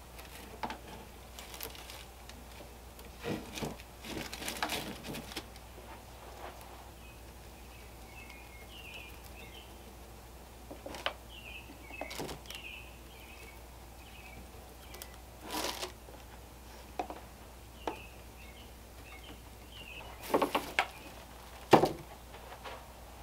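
Scattered rustles and light knocks from hands working jute twine around a bamboo torch pole over a plastic-bagged bin, loudest in a few short clusters. Faint small chirps in the background, likely birds, run through the middle.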